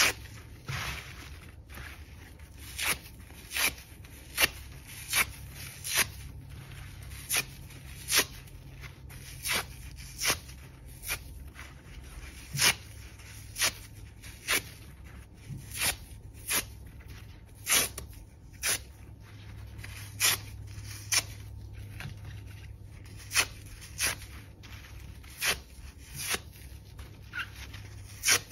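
The soapy inner foam of a microfiber car sponge being ripped apart by hand: a string of short, crisp rips, about one a second at uneven intervals.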